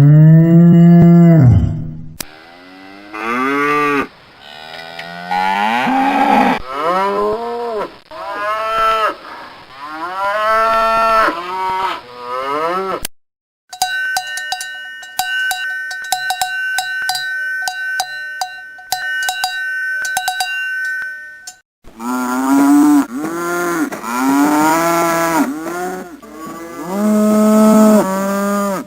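Cows mooing, one drawn-out call after another. About halfway through, the mooing gives way to cowbells clanking in an even, ringing rhythm for several seconds. Then the mooing returns.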